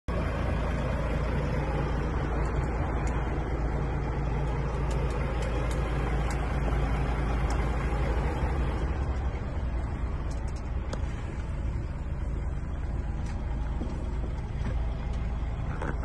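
Heavy truck's diesel engine idling steadily, a low even rumble heard from inside the cab, a little quieter in the second half.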